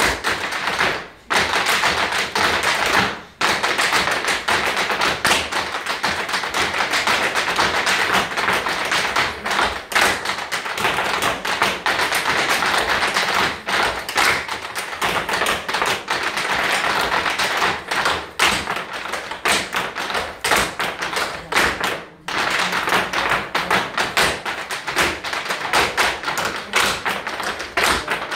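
Irish step dancers' hard shoes striking a wooden floor: a troupe dancing in unison, a fast, dense run of taps and heel thuds, broken by a few short pauses.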